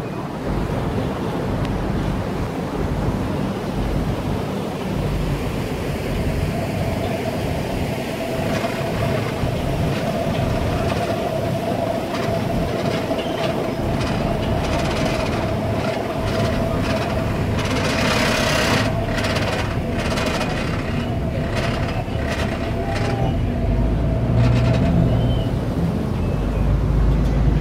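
Tour boat under way on a river: a steady engine rumble mixed with wind and water noise. A faint steady hum runs through the middle, and there is a brief louder patch of noise about two-thirds of the way in.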